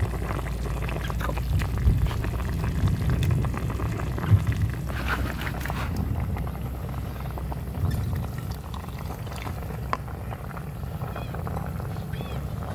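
Liquid sounds: a ladle stirring a wok of steaming soup, then a dark liquid poured over chopped chillies and spring onions in a coconut-shell bowl, with a steady low rumble underneath and a few sharp clicks.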